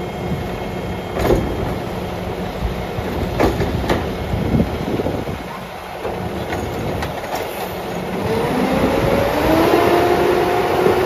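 Labrie Automizer side-loader garbage truck on a Peterbilt chassis tipping a recycling cart with its automated arm: the diesel and hydraulics run steadily, with a few sharp clunks as the cart is shaken out into the hopper. Near the end a rising whine builds as the truck pulls away.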